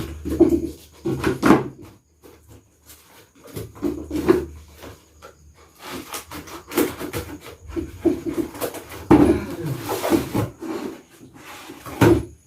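Parcel being opened by hand: irregular rubbing, scraping and rustling of packaging, with short knocks as the contents are handled.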